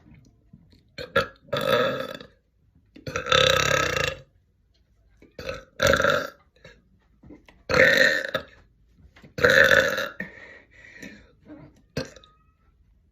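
A woman's air-induced belches, swallowed air forced up one burp after another: about five loud, drawn-out burps, the longest lasting about a second, with shorter, softer ones in between.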